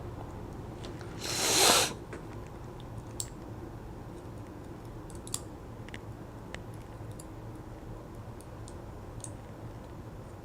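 Sparse, faint, sharp clicks of small metal lock parts and tools being handled as a pin-tumbler lock is taken apart, over a low steady hum. A short, loud rush of noise comes about a second in.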